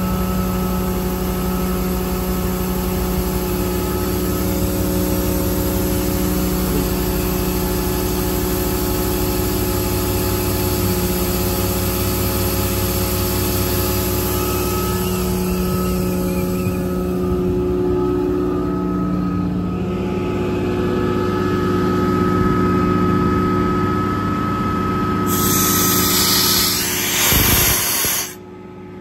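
An engine running steadily, its hum stepping to a new pitch a couple of times. Near the end a louder rushing noise with a thin high tone stepping upward comes in, then the sound drops away abruptly.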